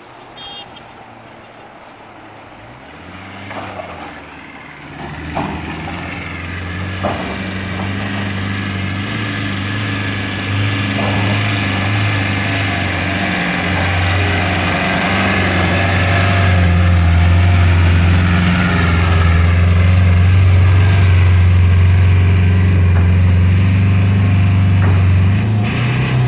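Land Rover Defender 110's engine held at high revs under heavy load, straining to climb a muddy slope. It builds from a few seconds in to a loud steady drone, with a few knocks early on, and the revs drop away right at the end.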